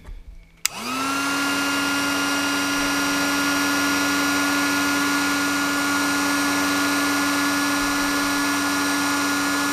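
Electric heat gun switched on with a click about half a second in, its fan spinning up in a quick rising whine and then running steadily with a constant hum and rush of air, used to shrink heat-shrink tubing onto an antenna lead.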